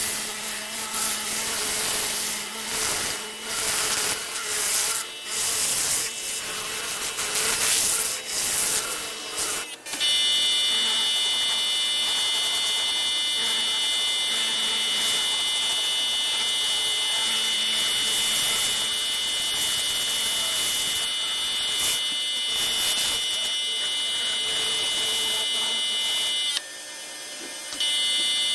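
Pressure washer spraying: uneven hissing at first, then from about ten seconds in a steady run with a high whine, which drops out briefly near the end and returns.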